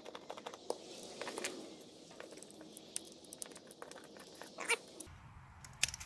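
Faint, scattered ticks and clicks of a screwdriver turning a small screw out of a spincast fishing reel's body, with a sharper click shortly before the end.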